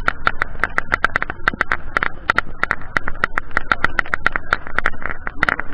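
Motorcycle on the move, picked up by a mounted action camera: a steady low rumble under rapid, irregular clicks and rattles, several a second.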